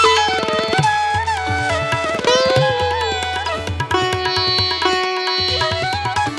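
Background instrumental music in a South Asian style: a gliding melodic line over hand-drum strokes and a steady low drone.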